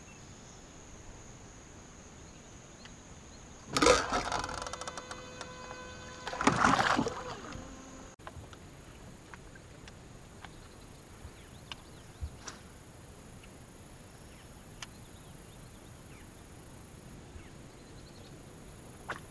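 Insects buzzing steadily as a thin high tone, broken by two loud sudden bursts of noise about four and six and a half seconds in. After that there are only faint scattered ticks.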